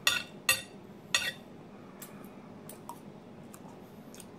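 Metal knife and fork scraping and clinking against a ceramic plate while cutting pancakes: three loud scrapes in the first second and a half, then a few faint clicks.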